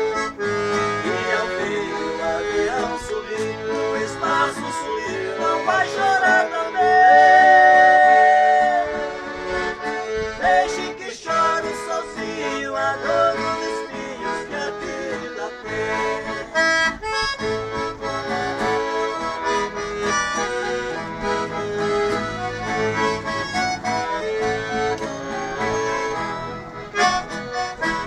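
Accordion-led instrumental passage of a Brazilian sertanejo song, with accordion melody lines over a string accompaniment. One long held note about seven seconds in is the loudest moment.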